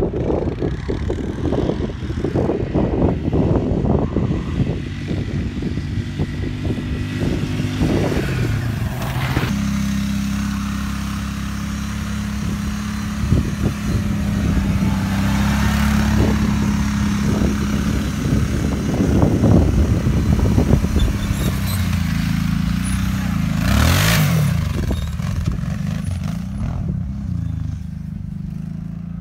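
Quad ATV engines running and revving, including a Kawasaki Brute Force. Revs rise and fall in a couple of places, and the engine holds a steady note for several seconds in the middle.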